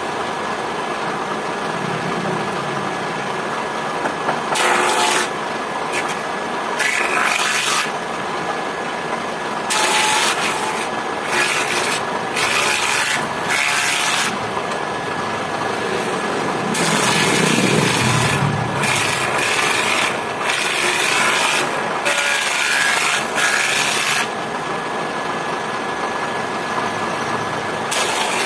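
A belt-driven wood jointer-planer runs steadily with a whine. It is broken by about a dozen harsh bursts of cutting as a board is pushed across the spinning cutterhead, shaving the wood.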